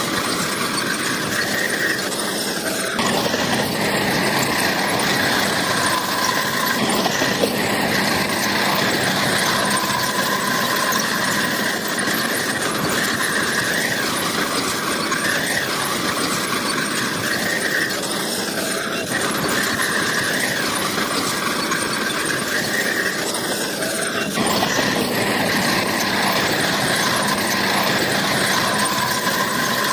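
Bulldozer at work: its diesel engine runs under a continuous high, grinding squeal of the steel crawler tracks. The sound shifts abruptly about three seconds in and again about three-quarters of the way through.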